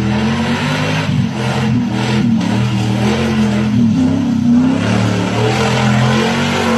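Nissan Patrol's engine running hard under load, its revs rising and falling, with a steady rushing noise over it.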